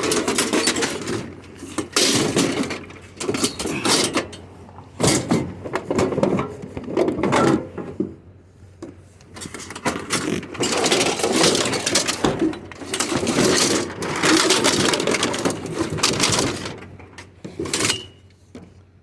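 Irregular clattering and rustling of scrap items and cans being handled, in uneven bursts with short pauses.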